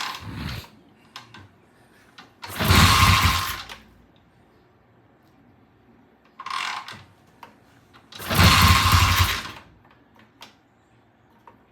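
1970 Triumph motorcycle engine catching and revving in two loud bursts of about a second each, with a shorter blip before the second, dying back to quiet between them. It is hard-starting, which the mechanics put down to a sticking carburetor float.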